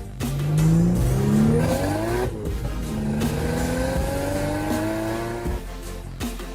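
Car engine accelerating hard, its pitch climbing, dropping at a gear change about two seconds in, then climbing again more slowly through the next gear.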